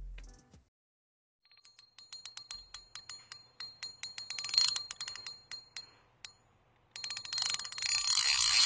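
Outro sound effect: a quick run of ticks with a high bell-like ringing, then a noisy swell that rises near the end.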